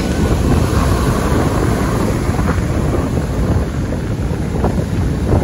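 Heavy surf from a rough sea breaking and washing up a sandy beach: a loud, steady rushing rumble of waves.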